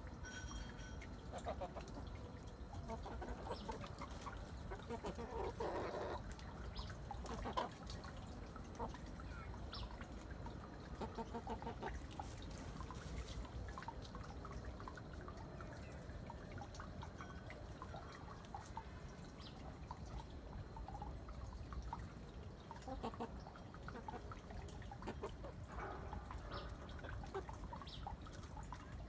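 Chickens foraging: soft, scattered clucks now and then, with small ticks and rustles from pecking and scratching in the leaf litter.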